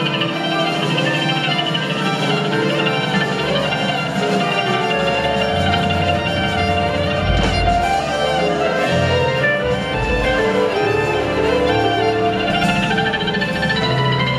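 Live band music from a jamgrass string band, with fiddle among the instruments, recorded from the audience. Low bass notes come in about five seconds in.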